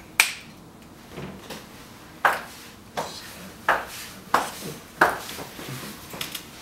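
A sharp click, then after about two seconds a run of five or six short knocks, roughly two-thirds of a second apart, like hard steps or taps on a hard surface.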